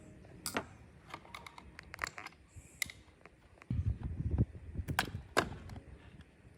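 A string of sharp clicks and taps from small hard parts being handled and set down during disassembly of a robot vacuum, with a short low rumble about four seconds in.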